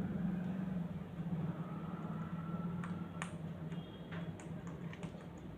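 Scattered short chirps and clicks from small pet parrots, over a steady low hum.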